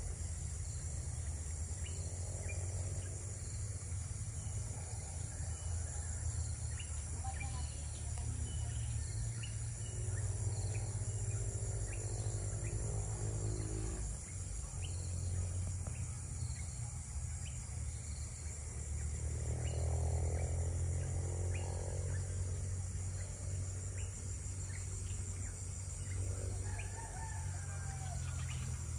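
Rural countryside ambience: a steady high insect drone with many short bird chirps scattered through it, and a few longer animal calls at intervals, over a steady low rumble.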